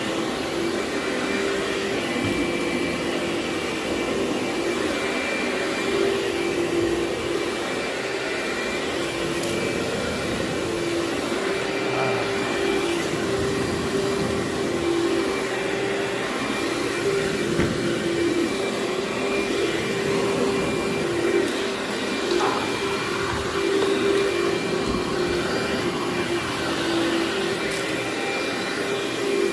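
Vacuum cleaner running steadily on carpet, its motor hum holding a constant pitch.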